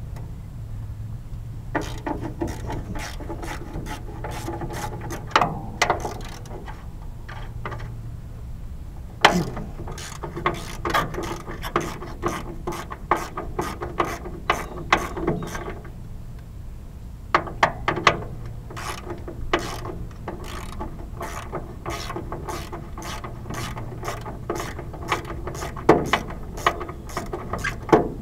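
Hand ratchet wrench clicking in runs of quick strokes with short pauses, turning the bolts that hold the tractor seat's mounting plate.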